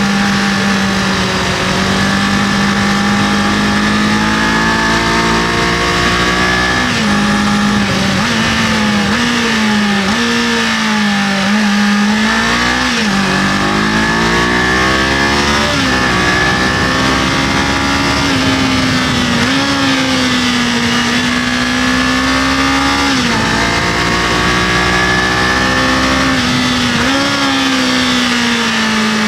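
Kawasaki KLE500's parallel-twin engine running under way, its note rising and falling with the throttle, with several sudden drops in pitch as the rider shifts or rolls off.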